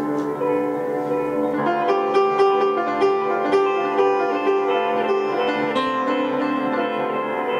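Upright piano and electric guitar playing an instrumental duet. Held chords at first, then from about two seconds in a line of crisply attacked notes at about two a second.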